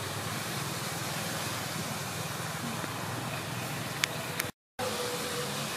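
Steady outdoor background hiss with no distinct source, a single sharp click about four seconds in, then a brief dropout to silence at an edit.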